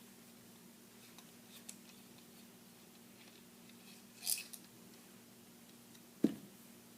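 Small metal ticks and a short rasp of a hex key working the hex screws that hold a Desert Eagle's compensator. A single sharp knock comes near the end, the loudest sound. A steady low hum runs underneath.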